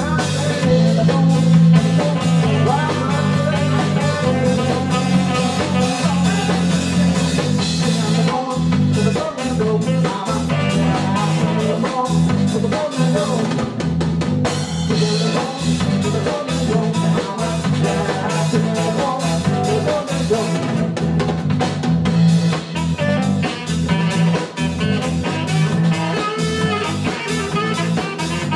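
Live band music: electric bass and drum kit playing a steady groove, with guitar.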